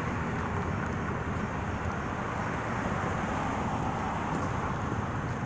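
Steady outdoor street noise: a continuous low rumble of road traffic, with no single event standing out.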